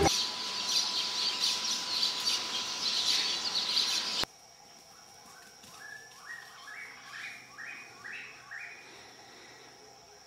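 Dense, busy bird chirping over a steady hum that cuts off abruptly about four seconds in. Then, against quieter surroundings, a bird calls a run of about eight short notes that step up in pitch, over a faint steady high whine.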